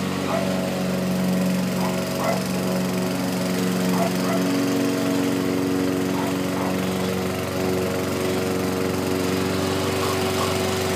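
Self-propelled walk-behind gas lawn mower running steadily while mowing grass, its engine note holding even.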